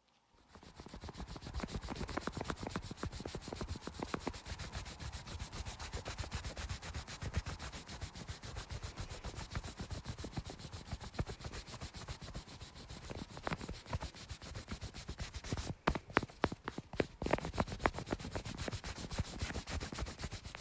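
Pencil eraser rubbed rapidly back and forth over paper close to the microphone, rubbing out pencil sketch lines: a dense, continuous run of quick rubbing strokes, with a few sharper, louder strokes about three-quarters of the way through.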